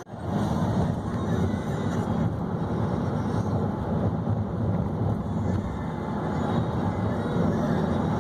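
Steady road and engine noise heard inside a moving car's cabin, a low, even rumble that starts suddenly at the beginning.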